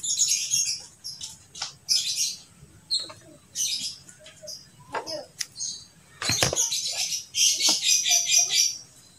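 Vinyl electrical tape being pulled off its roll and wound around a wire joint: a series of short, high-pitched ripping pulls, coming in quick succession near the end, with one sharp handling knock in between.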